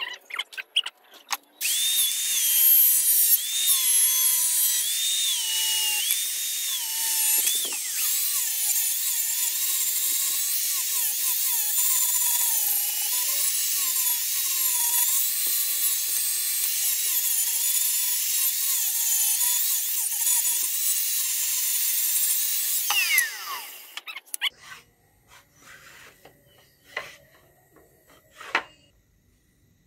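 A power tool working the steel of a chainsaw-bar blade runs for about twenty seconds, its pitch wavering as the load changes. It is then switched off and winds down, and a few light knocks follow.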